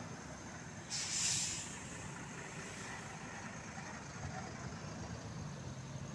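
A bus engine running, with a short hiss of air from its air brakes about a second in.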